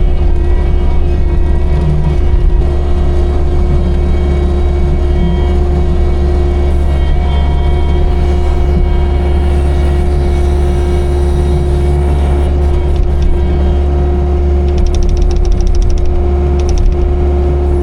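Skid loader engine running steadily under load, with a deep hum and a constant whine, and a short run of rapid clicking about three-quarters of the way through.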